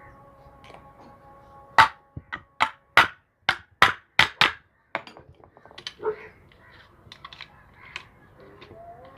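Hammer striking a new bearing to drive it into place on a washing machine motor: about nine sharp strikes in quick succession, then a few lighter knocks.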